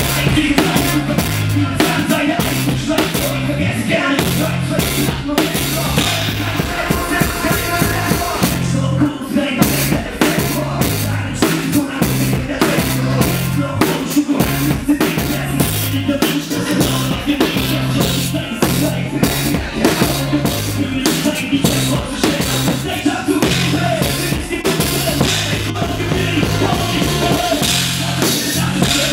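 A live band playing, with a drum kit close and prominent: a steady groove of kick, snare and cymbals over low bass notes that step through a repeating pattern.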